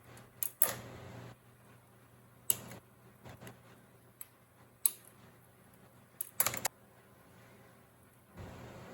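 A handful of sharp clicks and taps at irregular intervals, from small hard plastic model-kit parts and hobby tools being handled on a work desk, with a quick run of several clicks about six and a half seconds in.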